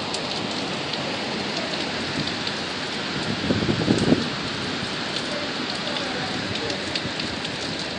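Heavy rain driven by hurricane wind: a steady, dense rush of noise, with a louder gust surging about halfway through.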